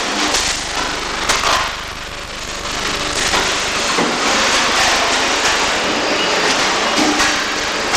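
Electric welding arc crackling and sputtering steadily, with many small irregular pops.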